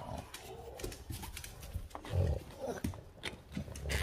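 Boston terriers making low, rough animal noises as they press at a sliding door. A few short, sharp knocks come from the glass sliding door, which is held shut by its bottom lock.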